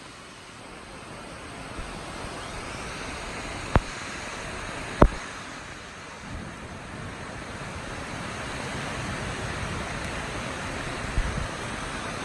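Wind rushing through trees as a storm comes in: a steady noise that grows louder over the second half. Two sharp clicks come about four and five seconds in.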